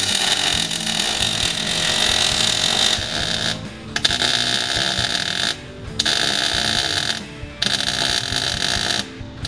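MIG welder arc crackling and hissing as short welds are laid on sheet steel, in runs of about two seconds with brief pauses between them as the gun trigger is released. Background music plays underneath.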